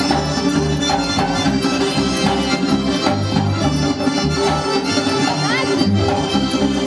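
Background music: an instrumental tune over a repeating bass line.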